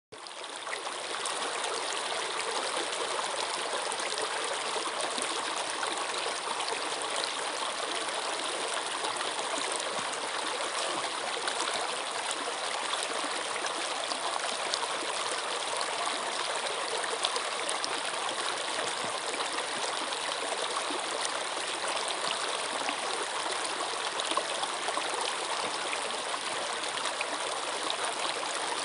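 Running water in a stream, a steady, even rush with small splashes throughout, fading in over the first second.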